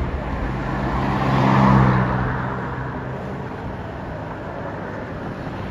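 A road vehicle passing by: its engine and road noise swell to a peak about one and a half seconds in, then fade into steady traffic noise.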